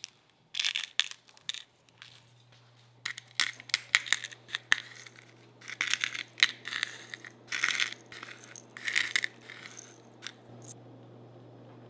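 Seasonings shaken from spice shakers onto a raw salmon fillet: a series of short, sharp shakes in quick runs that stop shortly before the end, over a faint steady low hum.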